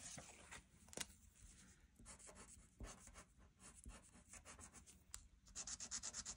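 Marker scribbling back and forth on a paper game sheet, colouring in squares: faint strokes at first, then quicker, louder strokes near the end. A light tap about a second in.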